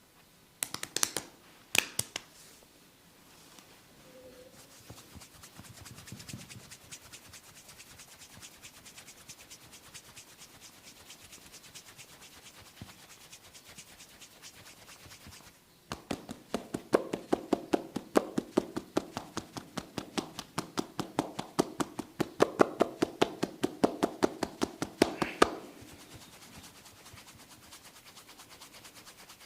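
Hands striking the body in rapid, rhythmic percussive massage strokes: faint and quick for a while, then louder and more forceful from about halfway through, stopping a few seconds before the end. Two sharp cracks or slaps come in the first two seconds.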